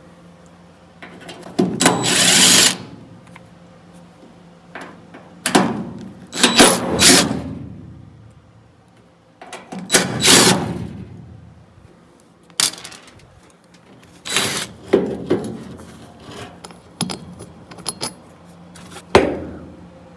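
Cordless drill-driver running in about five short bursts, backing the screws out of sun visor brackets, with short clicks and clinks of metal parts between the bursts.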